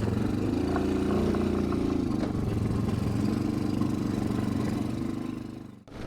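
ATV engine running at steady, moderate revs, fading out near the end.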